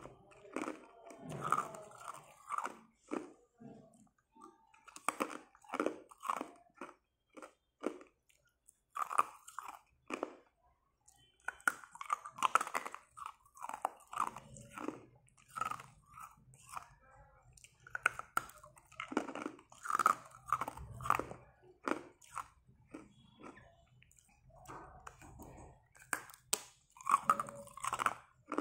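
Hard ice cube sticks bitten and crunched between the teeth and chewed, in runs of sharp crunches with short pauses between bites.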